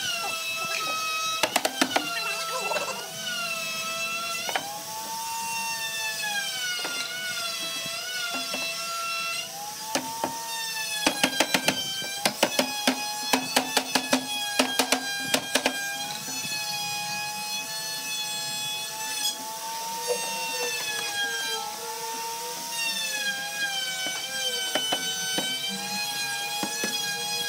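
Background music with a gliding melody over steady held notes, broken by quick hammer taps on a wooden panel: a short cluster about two seconds in and a longer run of rapid taps from about 11 to 16 seconds in.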